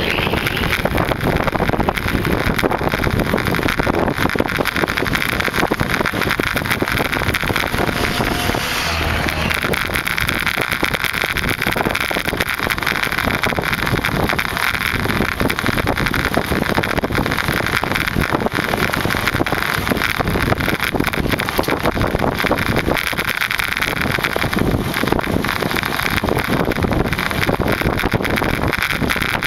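Steady wind buffeting the microphone of a camera carried on a moving bicycle, mixed with road noise.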